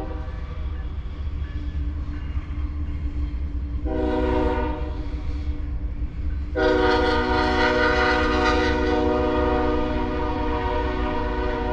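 Horn blasts over a steady low rumble: a short blast about four seconds in, then a long blast from about six and a half seconds that holds until near the end.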